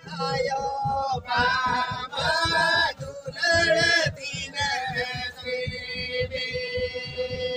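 Several Santali banam, bowed folk fiddles, playing a steady droning melody while men and women sing a folk song in phrases over it, with a quick, even low beat underneath.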